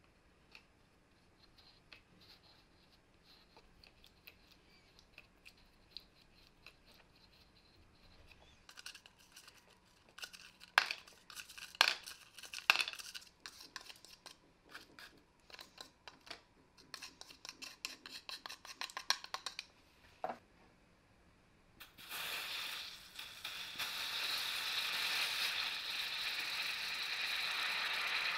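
A metal spatula scrapes and clicks against a plastic jar and cup while scooping out ferric chloride powder. A little over halfway through, water is poured steadily from a kettle into the plastic cup, a continuous splashing hiss that runs on past the end.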